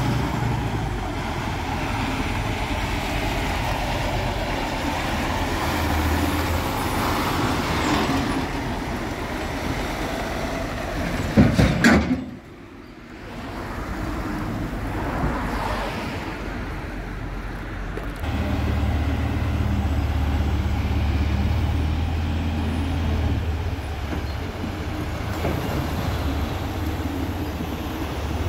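Heavy diesel truck engine running amid road traffic, with a loud short burst a little before halfway. Later a diesel engine idles steadily with a deep hum.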